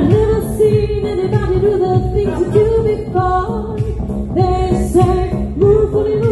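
Live band playing a pop song: female lead vocals carry the melody over keyboard backing and a steady dance beat.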